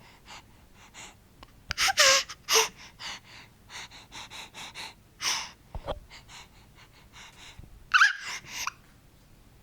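Five-month-old baby's short, breathy gasps and panting, with brief squeaks, the loudest about two seconds in and again near the end.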